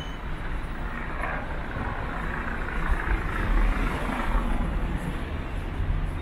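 A motor vehicle passing by on the street: tyre and engine noise that swells to a peak in the middle and fades toward the end, over a steady low traffic rumble.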